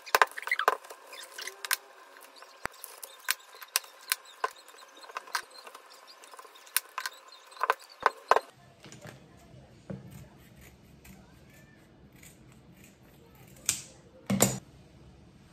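Kitchen knife knocking on a cutting board while meat or fish is cut into portions: quick, irregular knocks through the first half. After that, a few sparse knocks and two louder ones near the end.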